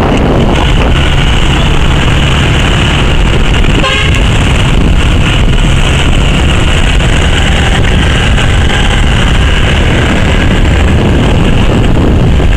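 Riding on a motorbike in street traffic: steady wind buffeting on the microphone over the running engine and road noise, with a short horn beep about four seconds in.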